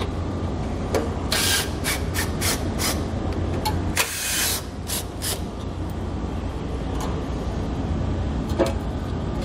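Cordless impact driver with a T40 star bit backing out the screws that hold the plastic grille to the bumper. It makes several short runs, the longest about a second and a half in and about four seconds in, and a couple more faintly near the end, over a steady low hum.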